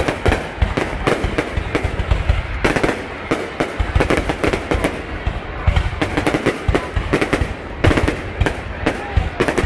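Fireworks going off in a rapid, unbroken barrage of bangs and crackles.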